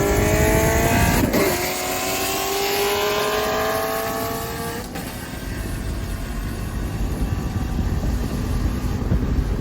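Car engine accelerating hard, its pitch climbing steadily through a gear, with a brief break about a second in where it changes gear; the engine note cuts off about five seconds in, leaving a low rumble.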